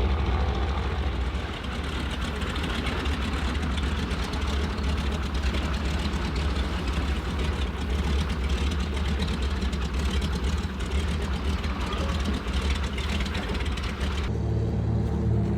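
An engine running steadily with a strong low rumble. The sound changes abruptly about a second before the end.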